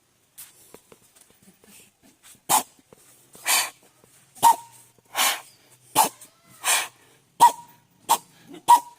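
A man's mouth imitation of an old flour-mill (chakki) engine starting: sharp breathy puffs, each with a short popping tone, that come faster and faster as the engine picks up speed.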